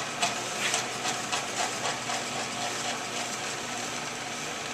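Ammco brake lathe running, its arbor spinning a hubless brake rotor with a steady mechanical hum, with a few light clicks in the first couple of seconds. The cutting bits are backed off, so the rotor is spinning without being cut.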